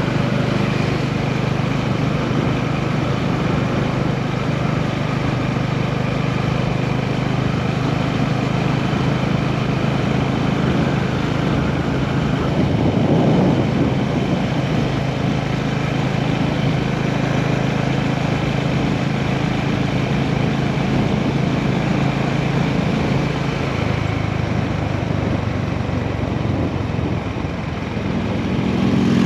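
Honda GB350's air-cooled single-cylinder engine running steadily at low revs, a steady low exhaust note. Its low tone shifts slightly about two-thirds of the way through, and the sound swells briefly near the end.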